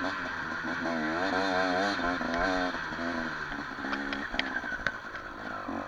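Enduro motorcycle engine revving up and down in quick throttle changes, with a few sharp clicks about four to five seconds in.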